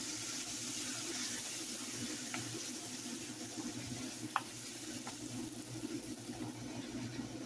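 Water poured into a hot skillet of seared steak strips, sizzling and bubbling steadily as it is stirred with a wooden spoon, with a few light clicks.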